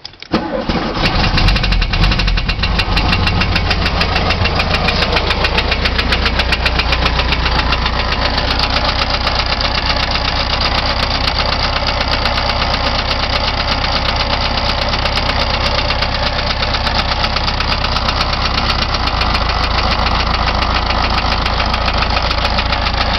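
1973 VW Beetle air-cooled flat-four engine running steadily at idle with a rapid, regular knocking ticking through it. The knock persists with the valves freshly adjusted to the proper gap and the ignition timing not yet set; the owner is unsure of its cause.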